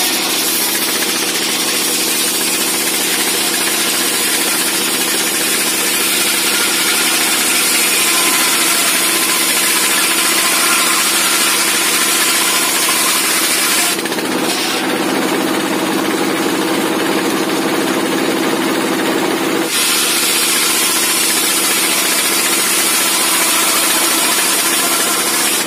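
Dompeng diesel engine running steadily under load, driving a homemade circular saw bench that rips lengthwise through timber with a loud, steady high hiss. The sawing sound changes about 14 seconds in and again about 20 seconds in, as one board comes through and the next cut goes on.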